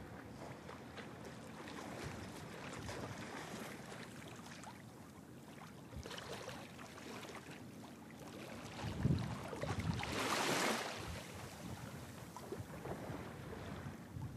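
Wind buffeting the microphone outdoors: a rough, uneven rushing noise with a stronger gust that swells into a loud hiss about nine to eleven seconds in.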